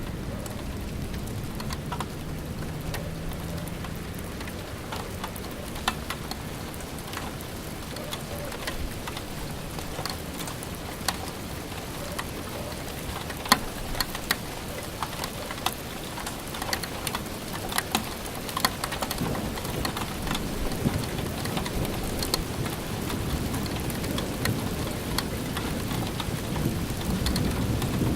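Steady rainfall with close, sharp drops ticking on a surface. A low rolling rumble of thunder builds about two-thirds of the way through and grows louder toward the end.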